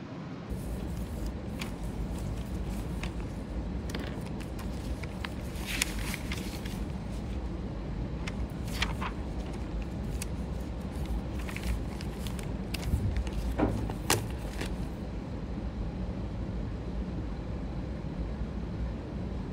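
Sheets of printed paper rustling and shuffling on a desk as pages are flipped, with a few short crisp rustles, the strongest about six, nine and fourteen seconds in, over a steady low background hum.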